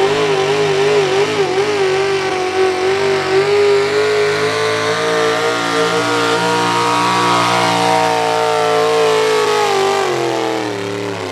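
Pulling truck's engine revved hard at high rpm through a pull down the track, its pitch wavering and climbing a little, then dropping and fading as the run ends near the close.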